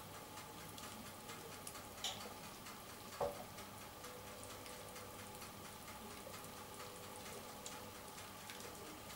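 Faint, irregular crackling of crisp baked phyllo pastry as syrup is poured over hot baklava from a steel pot. A light metallic clink rings out about three seconds in.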